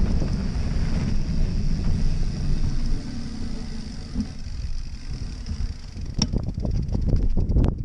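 Fat bike's wide tyres rumbling over a dirt trail, with wind buffeting the action-camera microphone; the rumble drops about three seconds in as the bike rolls onto grass. Near the end a quick run of clicks and light knocks as the bike slows to a stop.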